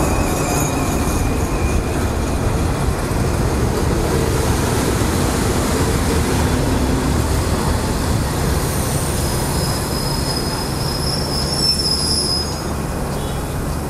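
Passenger train behind an Alsthom diesel-electric locomotive pulling into a station, carriages rumbling past on the rails. A high-pitched squeal from the wheels and brakes sets in about two-thirds of the way through as it slows, and the noise drops near the end as the train comes to a stop.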